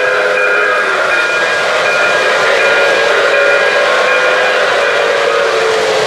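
O-gauge model train, a streamlined New York Central Dreyfuss Hudson steam locomotive pulling aluminium passenger cars, running past on three-rail track: a steady hissing rumble with held steady tones over it, the higher tones coming and going in short pieces during the first few seconds.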